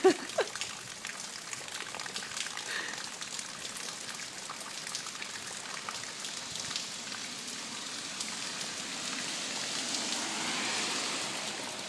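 Steady rain falling on a wet concrete driveway and lawn, with scattered single drops heard as faint ticks; the rain grows a little louder near the end.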